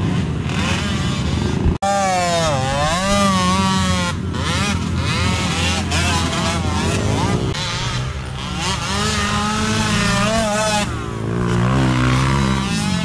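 Sport quad (ATV) engines revving up and down as the riders accelerate and ease off on a dirt trail, the pitch climbing and falling again several times. The sound cuts out for an instant about two seconds in.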